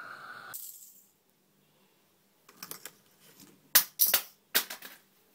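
A short breathy vocal sound at the start, then handling noise: a quick run of clicks and knocks, the loudest about four seconds in, as a hand moves about a wooden table close to the phone.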